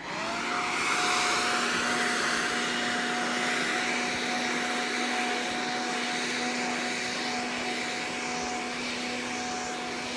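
Corded electric leaf blower switched on, its motor whining up to speed in a fraction of a second, then running steadily with a rushing blast of air under a steady whine.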